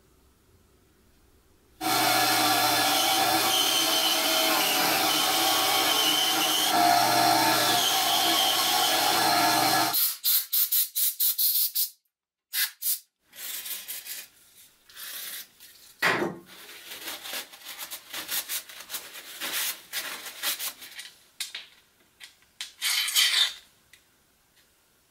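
A power tool starts about two seconds in, runs steadily for about eight seconds and stops abruptly. After it come scattered clicks, knocks and short hissy bursts as small parts are handled, with a louder burst near the end.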